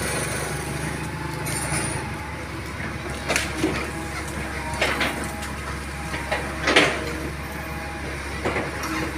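Hydraulic excavator's diesel engine running steadily as its bucket pushes against a tree trunk. A few sharp cracks and knocks break through about three and a half, five and seven seconds in.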